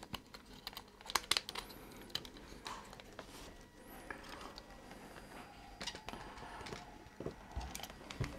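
Faint, scattered small clicks and taps of hard plastic being handled: a clear Lexan insert being pressed into place inside a slot car's plastic body.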